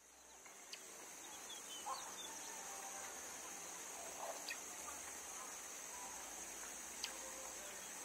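Steady high-pitched insect drone, with a few short bird chirps and brief calls now and then; it fades in over the first second.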